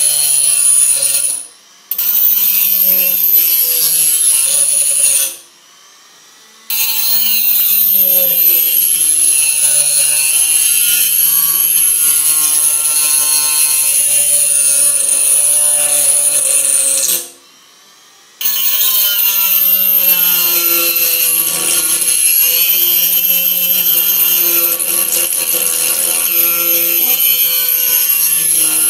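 Black+Decker RT18KA rotary tool running at high speed with a small abrasive bit pressed against a tin can: a high whine whose pitch sags and recovers under the load, over a grinding rasp. It cuts out briefly three times, near the start, about 5 seconds in and about 17 seconds in. This bit only scratches the can's thin metal and does not cut through it.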